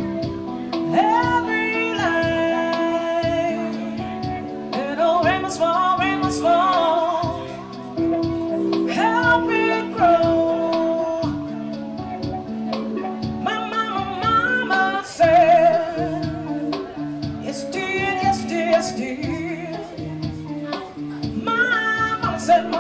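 A singer performing live, singing a wavering melody with vibrato while accompanying themselves on guitar.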